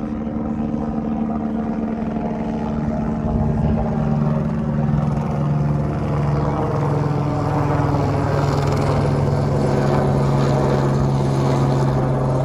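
Light helicopter flying overhead: a steady drone of rotor and engine with a low hum, getting a little louder about three seconds in.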